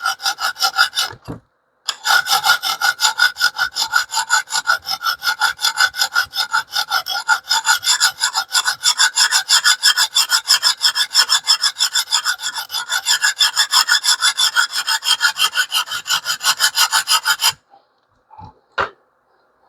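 Abrasive stone on a TS Prof Kadet Pro guided sharpener rubbed in quick, even back-and-forth strokes along a small steel cleaver's edge, several strokes a second, raising a burr. The strokes break off briefly about a second in and stop near the end, followed by a couple of sharp clicks.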